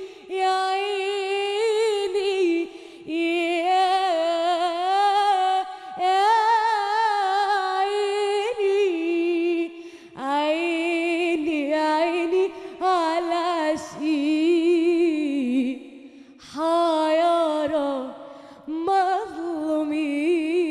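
A woman singing unaccompanied in long, ornamented phrases whose pitch wavers and bends, broken by short breaths. About eight phrases follow one another.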